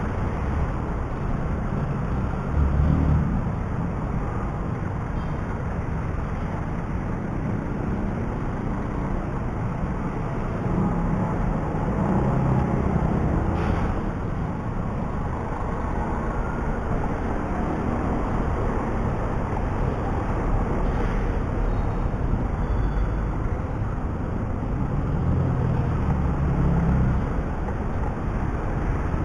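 Motorcycle riding in city traffic: its engine and road noise run steadily with the traffic around it, growing louder a few times, near the start, in the middle and near the end.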